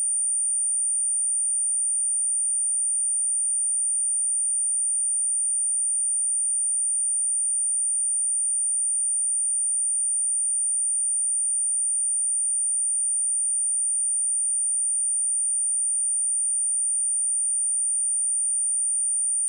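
A steady, high-pitched pure sine-wave test tone at 9062 Hz, held at one pitch and level without a break, used to test speakers or to shake water and dust out of them.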